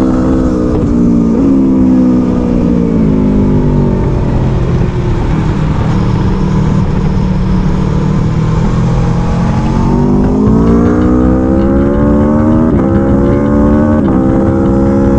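Aprilia Tuono V4 Factory's V4 engine being ridden hard: revs climb and snap down on an upshift early on, then fall away as the throttle closes. For several seconds wind rush and road noise cover the engine, then it pulls again through two quick upshifts near the end.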